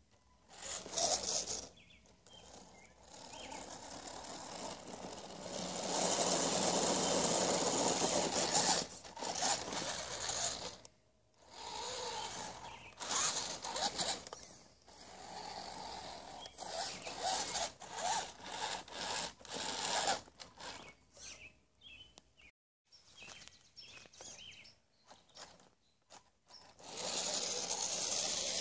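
1/10-scale RC rock crawler's motor and gears whirring in stop-start throttle bursts as it climbs and crawls over dirt, with the longest steady run around six to nine seconds in.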